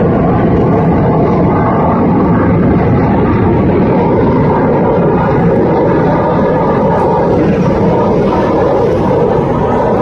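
F-16 fighter jet flying overhead, a loud, steady jet-engine rumble with a slight drop in level near the end.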